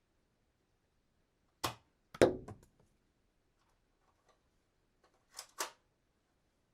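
Toy dart gun being handled and fired: a sharp click, then a louder snap with a brief rattle half a second later, and two quick clicks about three seconds after that.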